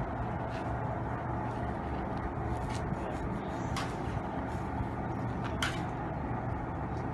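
Steady mechanical rumble and hum of a slipway trolley carrying a sailing yacht being let down the slip by a winch, with a few light clicks along the way.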